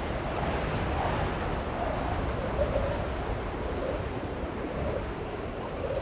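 Blizzard wind blowing over the microphone: a steady rushing noise.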